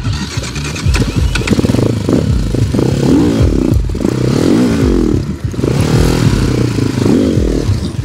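Sharmax RX300 enduro motorcycle engine revving hard in a series of rising and falling revs, as the stuck bike is worked free of snow and ice.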